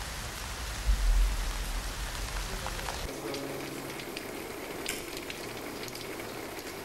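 Steady heavy rain falling, with a brief low rumble about a second in.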